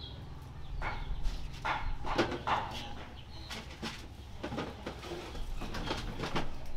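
Chickens clucking in short scattered calls, with a few light knocks and clicks between them.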